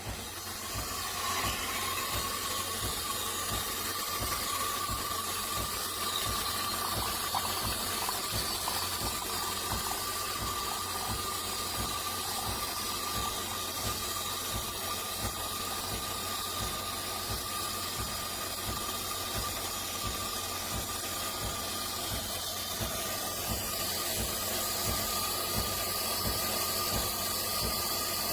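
Automatic espresso machine running with a steady hiss of steam and a faint held whine, over a regular low pulsing of its pump, a couple of beats a second. It starts abruptly at the beginning.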